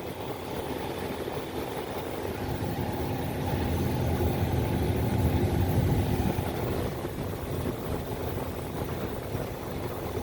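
Air conditioner running: a steady low hum with a held tone under a rushing, hissing noise, which swells louder for a couple of seconds in the middle.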